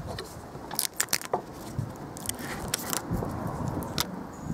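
Utility knife cutting Flashband foil-faced bitumen tape along a steel rule, and the rule being handled and lifted: a string of sharp clicks, metallic clinks and short scrapes, in clusters about a second in, near three seconds and around four seconds.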